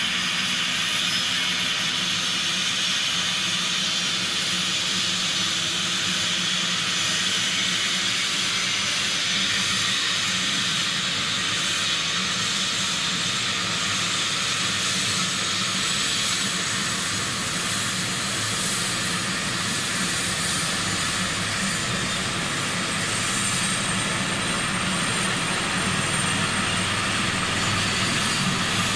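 DRF air-rescue helicopter running on the ground with its rotor turning before liftoff: a steady turbine whine over rotor and engine noise.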